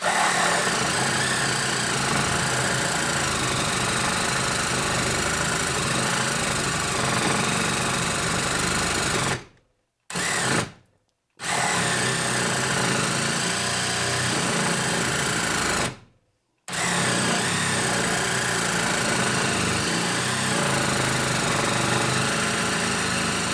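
DeWalt 12V Xtreme cordless one-handed hacksaw (a compact reciprocating saw) running steadily as its blade cuts lengthwise through a 2x4. The sound breaks off briefly three times, near ten, eleven and sixteen seconds in.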